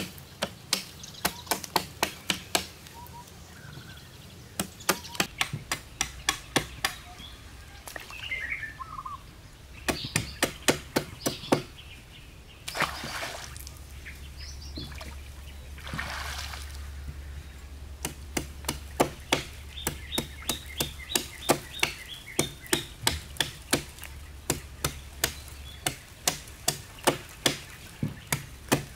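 Repeated sharp blows of a hand tool on fresh-cut wooden poles, about three a second, in several runs with short pauses. A few bird chirps come in the pause near the middle.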